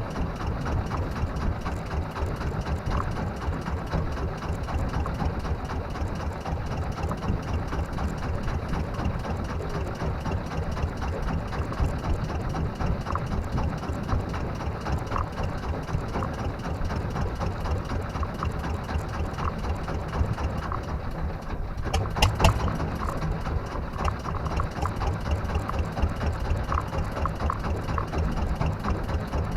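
A small fishing boat's engine running steadily at low revs with an even, rapid chugging. A few sharp knocks come about three-quarters of the way through.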